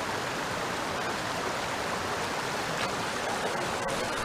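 Shallow stream rushing over stones in a small riffle, a steady, even rush of running water.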